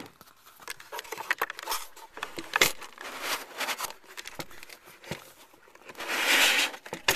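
Plastic milk jugs handled and pulled out of a spray-foam insulated housing: irregular knocks and clicks, scraping and plastic crinkling, with a longer scraping rush about six seconds in.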